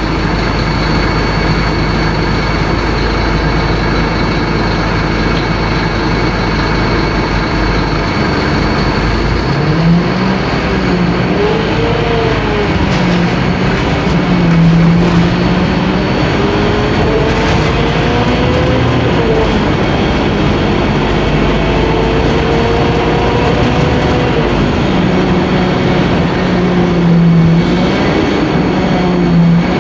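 Scania K-310IA bus's five-cylinder inline turbodiesel running loud under load, over steady road and body noise. From about a third of the way in, its note climbs slowly and drops back several times as the bus pulls away and gathers speed.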